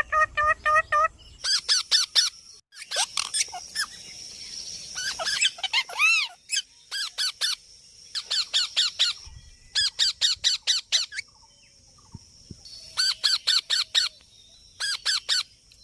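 Green parrot calling: repeated runs of quick, shrill squawks, each run about a second long, with short gaps between.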